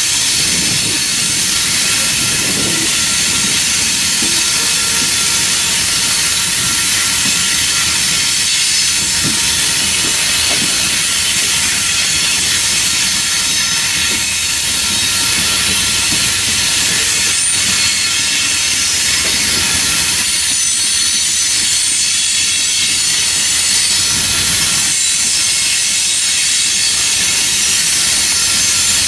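Coal train's loaded hopper cars rolling past over the rails: a steady, loud hiss of wheels on rail with irregular low clanks and rumbles from the cars and a thin steady high tone running through it.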